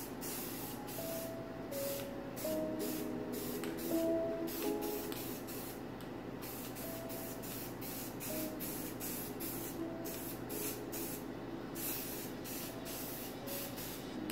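Aerosol can of white spray paint hissing in many short bursts, about one or two a second, as a second coat is sprayed on.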